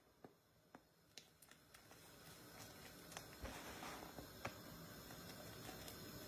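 Large pot of water boiling on a gas hob, faint, with a few light clicks at first; a soft steady bubbling grows from about two seconds in as the boil picks up.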